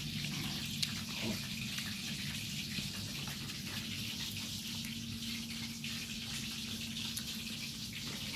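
Steady background hiss with a low, even hum underneath, and a few light clicks of chopsticks on bowls as people eat.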